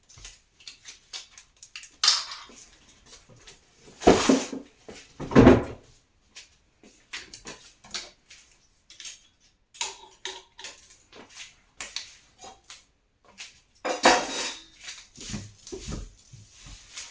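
Kitchenware and utensils clinking and clattering as they are handled, with a few louder knocks and scrapes about two, four to five and fourteen seconds in.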